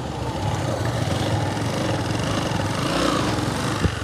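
A small vehicle engine running close by, its rumble swelling slightly about three seconds in, with one short sharp knock near the end.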